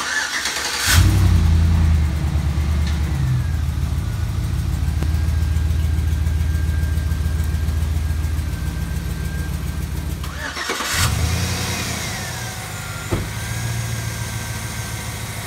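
Chevrolet Silverado's 5.3-litre V8 starting about a second in and idling, with an exhaust manifold leak from a broken manifold stud. Near ten and a half seconds it starts again and idles with a manifold clamp fitted over the leak.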